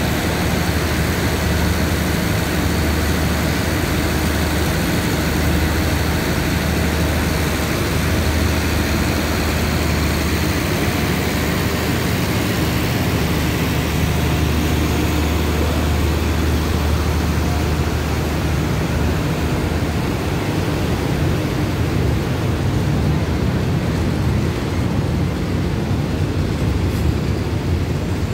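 A diesel-hauled passenger train's coaches moving slowly past along the platform: a steady low engine hum over an even rumble, with no distinct wheel clicks.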